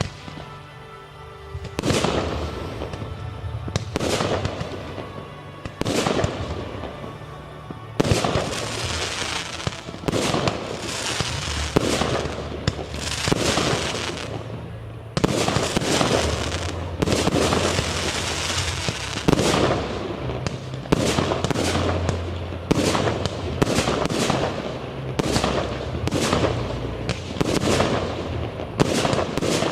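Aerial firework shells bursting one after another with sharp bangs, some trailing long crackling sprays. They come about every two seconds at first, then thicker and faster toward the end, over background music.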